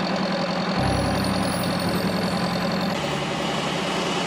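Heavy vehicle engine idling steadily with a low rumble that comes in about a second in.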